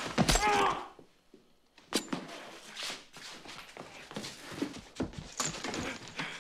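Two men scuffling over a card table. A loud, strained cry or groan opens the struggle, followed by scattered knocks, bumps and heavy breathing or grunts as they grapple.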